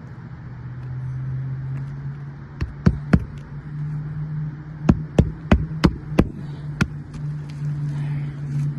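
Hammer strikes driving roofing nails into asphalt shingles: three sharp knocks, a short pause, then six more at about three a second, over a steady low hum.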